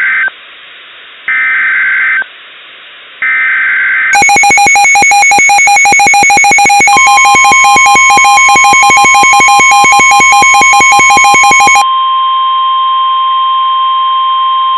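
NOAA Weather Radio Emergency Alert System signal. It begins with the end of the SAME digital header, harsh warbling data bursts lasting about a second each. About four seconds in a loud, rapid electronic beeping alarm starts. About seven seconds in the steady 1050 Hz warning alarm tone joins it, and the tone carries on after the beeping stops near twelve seconds.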